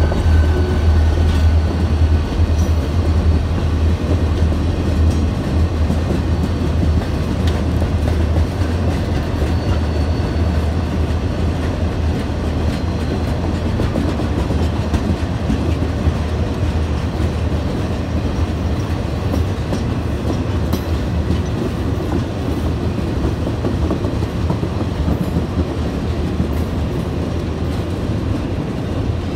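Train rolling past, a steady low rumble with the clickety-clack of wheels over the rail joints, easing slightly in loudness over the half-minute.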